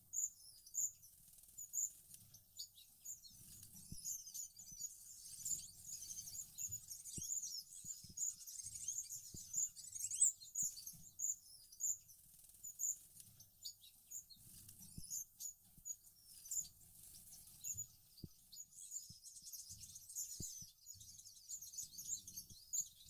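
Gouldian finches chirping: many short, high-pitched peeps, at times several a second in quick runs.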